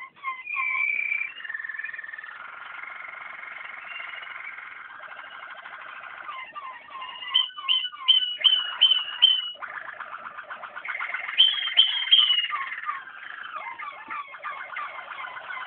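Waterslager (Malinois) canary song: a continuous run of rolling trills and held notes that stays fairly low in pitch. About halfway through comes a short series of sharp repeated notes, about two a second, and a few more follow a little later.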